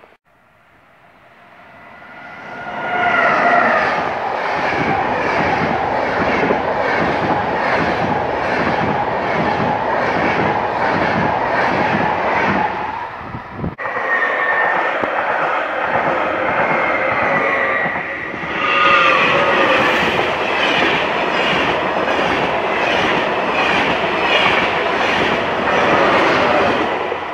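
Trains passing close by at speed. First, a train's rumble builds up over a few seconds into a steady rushing with rhythmic wheel clatter over the rail joints. The sound then breaks off suddenly, and a Thalys high-speed train passes with the same rushing and clatter, swelling louder again partway through.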